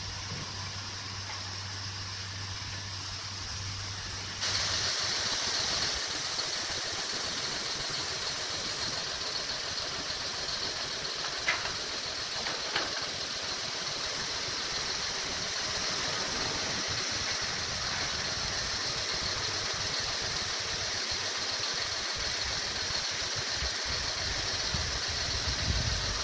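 Diesel engine of a construction machine such as an excavator, running steadily. About four seconds in the sound changes abruptly to a louder, hissier engine noise, with two faint clicks near the middle.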